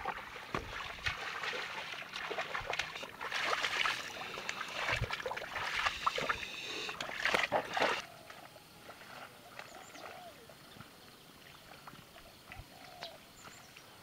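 Water and mud splashing and sloshing as a pair of water buffalo drag a wooden harrow through a flooded rice paddy. About eight seconds in it gives way to quiet open-field ambience with a few faint bird chirps.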